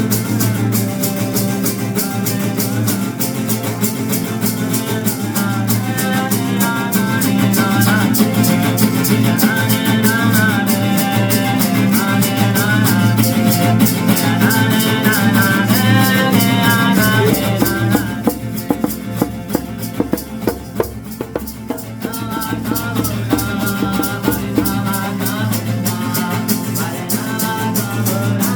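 A song with a voice, plucked guitar and a steadily shaken rattle. About two-thirds of the way through, the voice and guitar drop back for a few seconds, leaving sparser rattle strokes, then the song comes back in.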